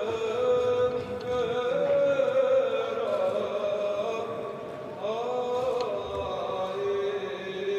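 Men chanting a slow liturgical chant, holding long notes that slide up into each new pitch.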